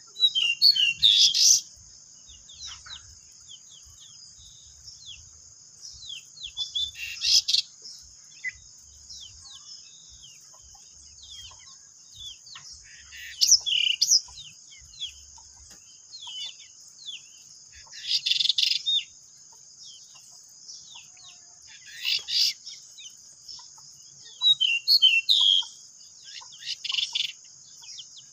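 Pied bushchats singing in short bursts of quick, high chirping notes, about seven phrases a few seconds apart, over a steady high-pitched hiss.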